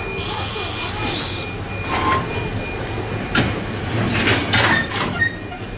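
Heritage steam train's old passenger carriages rolling past on the track, a steady rumble with sharp clanks from the wheels and couplings about two, three and a half, and four and a half seconds in.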